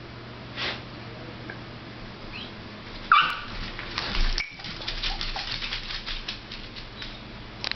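Dachshunds at play: one short, high-pitched bark about three seconds in, followed by a quick run of clicks and scuffling.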